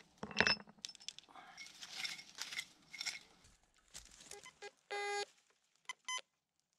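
Rustling and metallic clinking of handled gear and clothing, with a knock less than a second in. Then a metal detector gives its target tone: one buzzy beep about five seconds in and two short beeps near the end.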